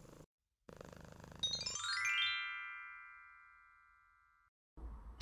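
A cat-purring sound effect, then about a second and a half in a quick rising run of bright chime-like tones that rings on as a chord and slowly fades away.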